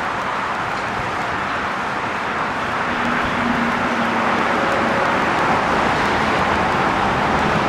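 Steady noise of road traffic passing, growing a little louder about two and a half seconds in, with a faint engine hum in the middle.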